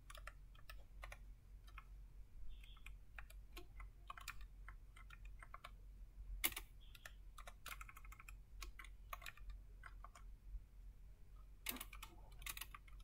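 Typing on a computer keyboard: faint, irregular key clicks, with a quick run of keystrokes now and then, over a steady low hum.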